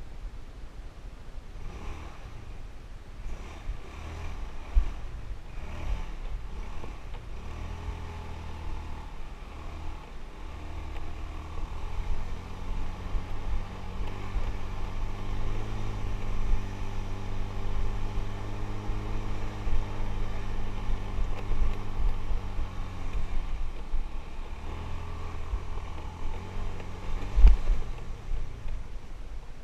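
Motorbike engine running while riding over rough concrete and dirt tracks, with steady low rumble. Near the middle the engine pulls harder, its pitch climbing and then easing off. There are scattered knocks from bumps, the loudest a jolt near the end.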